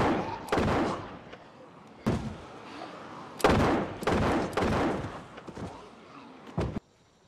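Gunfire in a firefight: about half a dozen sharp shots at uneven intervals, some half a second apart, others more than a second apart, each with a ringing echo tail. The sound cuts off suddenly near the end.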